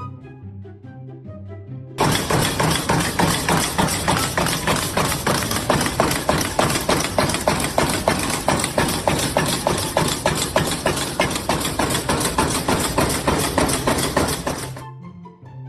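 Light background music, then about two seconds in a loud, rapid run of sharp knocking and clattering starts suddenly. It keeps up a quick, even pace and cuts off abruptly near the end, leaving the music.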